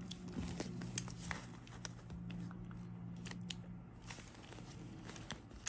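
Irregular light clicks and taps of plastic and metal parts as the DeWalt DWACPRIR copper pipe cutter attachment is fitted and adjusted on an impact driver, over a steady low hum.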